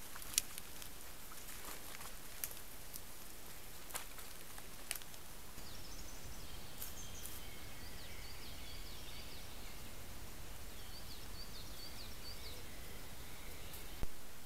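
Forest ambience through a trail camera's microphone: a steady hiss, with a few sharp clicks and snaps in the first five seconds. From about six seconds in, a small bird chirps repeatedly in the background, and a sharp click comes near the end.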